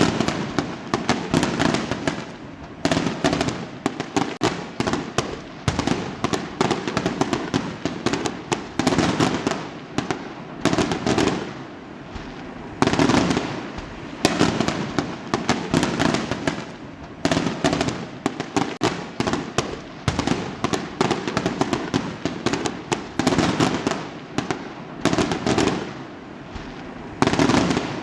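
Fireworks going off in quick succession: a loud bang about every second or two, each followed by a dense crackle of small cracks.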